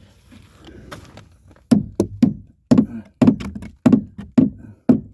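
Hammer striking wood, a quick irregular run of about a dozen heavy blows starting under two seconds in, knocking an old joist piece loose.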